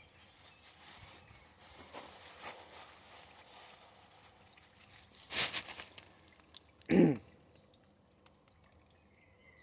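Crinkling and rustling of plant packaging being handled and unwrapped, with one louder rustle a little past halfway. A brief vocal noise follows, then it goes quiet.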